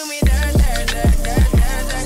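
Background music with a steady beat: deep bass notes that slide down in pitch on each hit, under sharp percussion strikes. The bass drops out for a moment right at the start.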